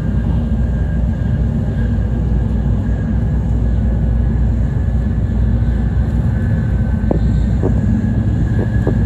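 Cabin running noise of an N700A Shinkansen train at speed: a steady, loud low rumble. A few light ticks come about seven to nine seconds in.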